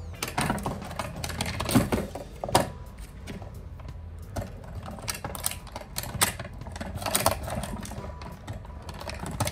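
Clear plastic clamshell packaging crackling and clicking as it is handled, with irregular sharp clicks and a few louder clusters of crinkling.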